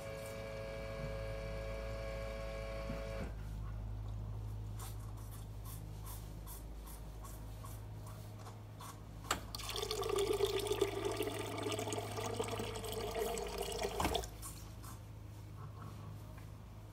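Förster-Technik Vario Smart automatic calf feeder running through its water calibration: a steady machine hum throughout, with a motor whine for the first three seconds while the mixer flask empties. About nine seconds in there is a click, then water rushes into the mixer flask for about four and a half seconds as the second 500 ml portion is dispensed, stopping abruptly.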